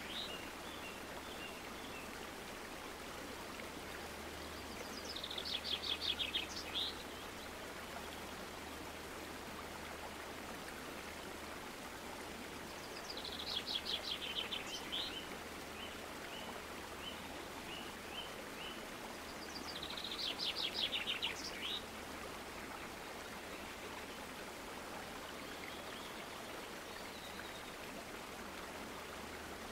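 A small songbird singing faintly: three trilled songs about seven seconds apart, each a rapid run of high notes lasting about two seconds, over a steady low hiss and hum.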